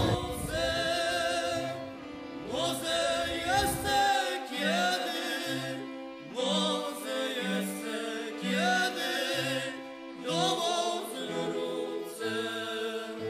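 Music with several singing voices over a bass line that plays about one low note a second. A low rumble sits underneath and stops abruptly about four seconds in.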